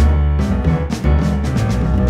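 Modern jazz trio playing: piano over a heavy, strongly accented bass line, with drum-kit hits.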